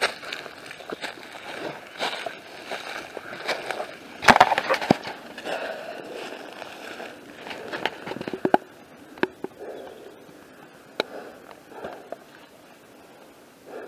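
Footsteps crunching through dry leaf litter and twigs, with irregular rustles and sharp snaps; the loudest crunching comes about four seconds in, and the steps thin out toward the end.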